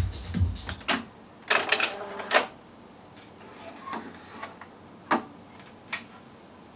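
Music playing from an Akai GX-77 reel-to-reel tape deck stops just under a second in. A few clicks and clunks of the deck's transport controls and mechanism follow as the reels come to a stop, and two more sharp switch clicks come near the end.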